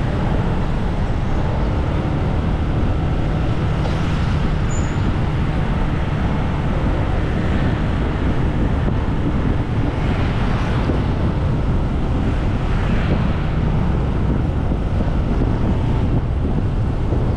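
Steady wind rush on the microphone over road traffic noise, as when filming while riding along a street.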